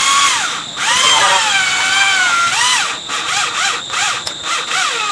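Handheld electric drill speeding up and slowing down as its trigger is squeezed and let go: a few longer runs, then quick short pulses about three a second.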